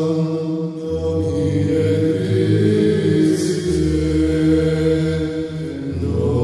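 Dark, chant-style music: low voices hold long notes over a sustained drone, in the manner of Gregorian chant. The low note shifts about a second in and again near four seconds.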